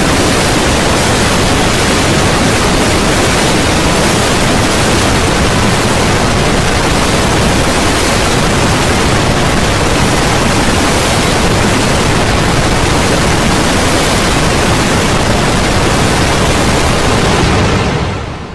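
Loud, steady hiss of static-like noise spread evenly from low to high pitch, fading out over the last moment.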